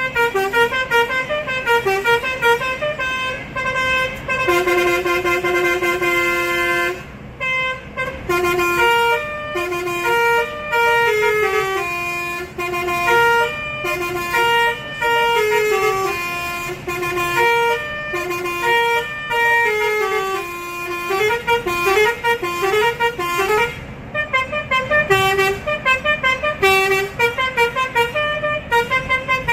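Bus's basuri musical air horn playing a melody of held and stepping notes, with short gaps and a quick run of falling notes about two-thirds of the way through, over a low rumble of engine and tyres.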